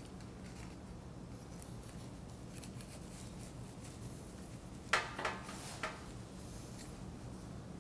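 Metal spatula sliding under a cut round of sugar cookie dough on a floured pastry cloth: faint scraping and rubbing, with a few short, louder scrapes about five seconds in.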